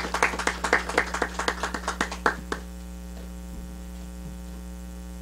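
Hands clapping in quick, uneven applause that stops about two and a half seconds in, leaving a steady electrical mains hum.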